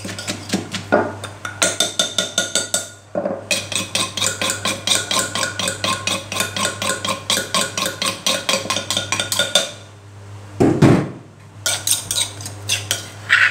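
Wooden pestle pounding chilies, garlic and shallots into a wet paste in a clay mortar, knocking steadily at about four strikes a second. There is a short break about three seconds in and a longer pause with a low thump about ten seconds in, then a few more knocks.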